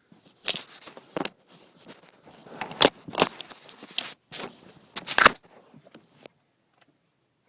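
Sharp plastic clicks and knocks with scraping and rustling as door handle parts on a 2006 Pontiac Vibe are worked and latched into place; the sounds stop abruptly about six seconds in.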